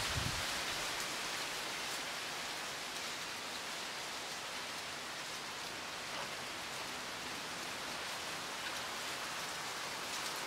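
Wind blowing steadily through native bush, the leaves of palm fronds, tree ferns and bamboo rustling in an even, unbroken hiss.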